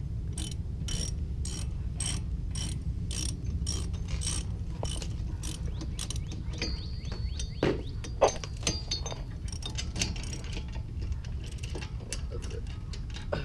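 Hand ratchet wrench clicking at an even pace, about four clicks a second, as it runs nuts down onto a wheel adapter bolted to the hub. About halfway through the clicking turns irregular, with a couple of sharper metal knocks.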